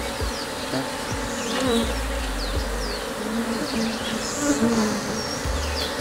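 Honeybees buzzing around an opened hive, a steady hum of many bees with single bees passing close in short humming tones that rise and fall in pitch.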